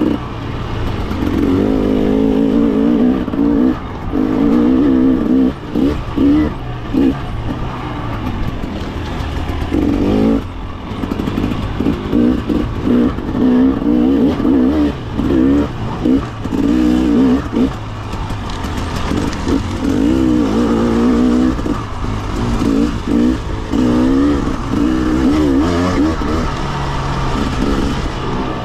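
Husqvarna TE300 single-cylinder two-stroke dirt bike engine revving up and down over and over, its pitch rising and falling with the throttle, with brief drops between revs.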